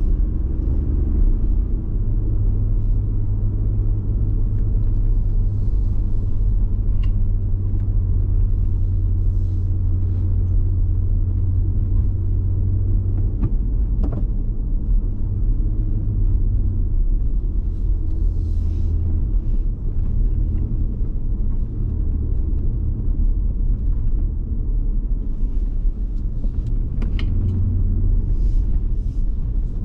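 Car driving at low speed, heard from inside the cabin: a steady low engine and road rumble whose note shifts slightly a few times, with a few faint clicks.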